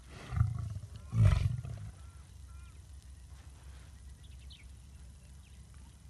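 Male lion sneezing: a shorter nasal blast, then about a second later a second, much louder one.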